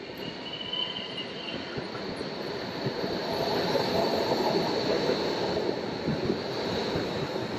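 Low-floor electric street tram passing close by on its street tracks, its rolling and running noise building to a peak in the middle. Near the start the wheels give a thin, high squeal.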